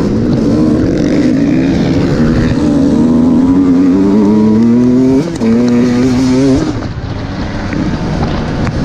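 Enduro dirt bike engine running hard under the rider, its pitch climbing, breaking briefly about five seconds in and climbing again, then dropping back near seven seconds as it comes off the throttle.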